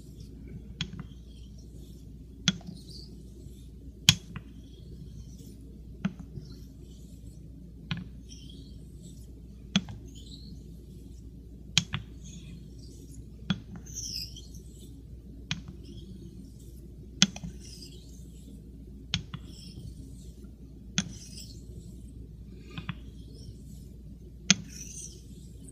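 Greaves near-wedge straight razor being honed on a Shapton Pro waterstone to set the bevel. The edge scrapes faintly across the stone in strokes, and a sharp click about every two seconds is the spine tapping the stone as the blade is flipped for the next stroke.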